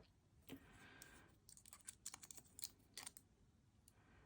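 Faint, irregular metallic clicks and ticks of a lock pick working the pins of a 40mm laminated steel padlock under a tension wrench, a lock described as gritty and stiff.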